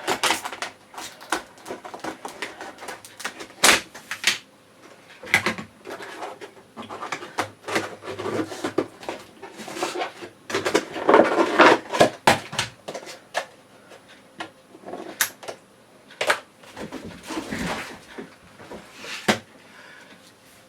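Cardboard box and plastic packaging being opened and handled: irregular rustling and crinkling with sharp clicks and knocks, busiest about halfway through.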